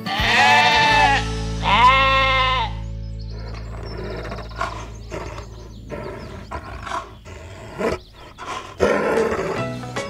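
A sheep bleats twice in quick succession, each call about a second long, over steady background music. Quieter scattered clicks follow.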